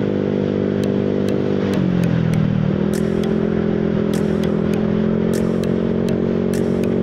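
Motor scooter engine running steadily while riding, its pitch dipping briefly about two seconds in as the throttle eases and then holding steady again. Scattered sharp clicks sound over it throughout.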